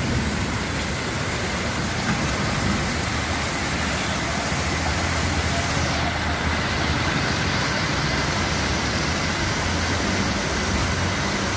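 Steady noise of heavy rain and floodwater rushing across a street, with the low hum of vehicles driving through the water.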